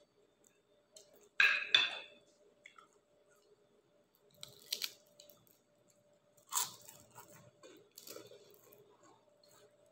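Close-up eating sounds: fried dried round scad (daing na galunggong) being crunched and chewed by mouth, in sharp irregular crunches. The loudest pair of crunches comes about a second and a half in, with quieter ones later. A faint steady hum runs underneath.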